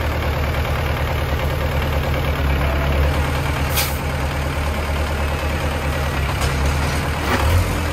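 Diesel engine of a homemade three-wheeled công nông dump truck running steadily at idle, with a low, even drone. A short hiss sounds about four seconds in.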